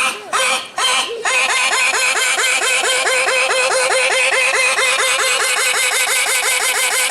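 A comic sneeze sound effect. Two short sneeze-like bursts come first, then from about a second in a long, rapid, unbroken run of short high squeaks, about seven a second.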